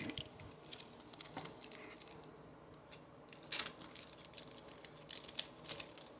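Baseball card pack wrapper and trading cards being handled: short bursts of crinkling and rustling, four times, with quiet gaps between.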